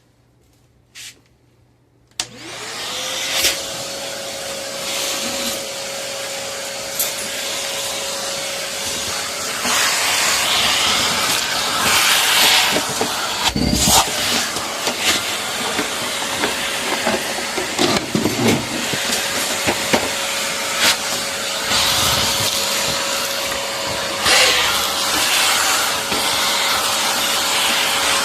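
A vacuum cleaner clicks on about two seconds in. Its motor whines up to a steady pitch and keeps running, with knocks and changes in the suction noise as it is moved about.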